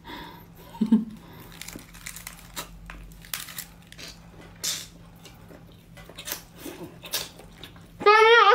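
Close-up eating sounds from a bundle of razor clams: the meat sucked and chewed from the shells, with irregular wet smacks and small clicks. A brief voice sounds near the end.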